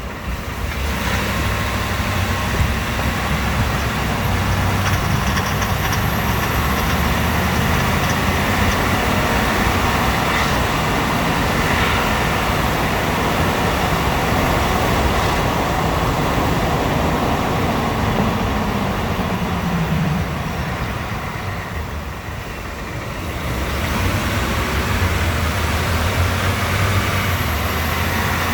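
2018 Ford F-150's 5.0-litre V8 running under load as the truck accelerates gradually at around 2,000 rpm, with the loud, intermittent knock that the owner takes for piston slap. The engine note falls away briefly about two-thirds of the way through.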